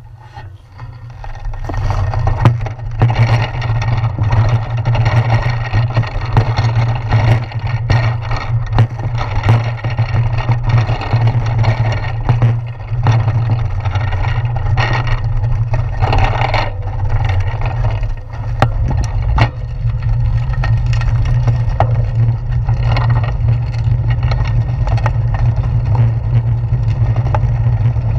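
Wind and road rumble on a handlebar-mounted GoPro Hero 4 as the bicycle rides over wet pavement. It is a steady low rumble with a hiss of tyre and air noise that comes up about two seconds in, as the bike gets moving. Scattered clicks and rattles come from bumps in the road.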